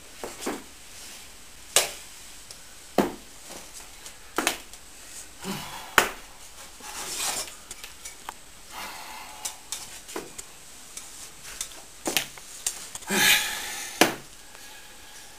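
Irregular knocks and clinks of metal tankards being handled and set down on a wooden table, about a dozen scattered strokes, with a few soft rustles and a longer hiss near the end.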